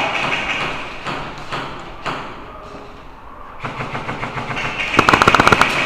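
Airsoft BB guns firing on full auto: quieter rapid clicking of shots from a little past halfway, then a loud, fast, even burst of shots lasting under a second near the end.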